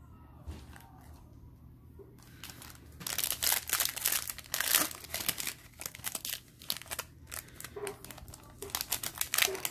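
Foil wrapper of a Bowman Chrome baseball card pack being torn open and crinkled by hand. It is fairly quiet for the first few seconds, then dense crackling begins about three seconds in and carries on.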